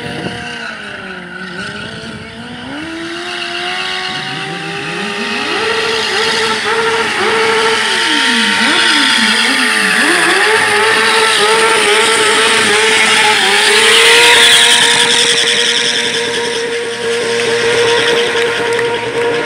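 A stunt vehicle's engine revving hard up and down, with quick blips of the throttle around the middle, then held at high revs near the end. Its tyres screech on the asphalt as they spin in a smoking burnout.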